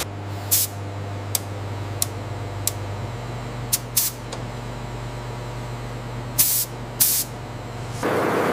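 Steady low hum of food-processing machinery, broken by about eight short, sharp hisses spread irregularly through it. Near the end the sound changes abruptly to a louder, even rushing noise.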